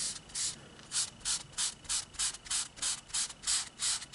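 An eraser rubbed quickly back and forth on a comic book's paper cover to lift surface dirt, about four or five short scratchy strokes a second.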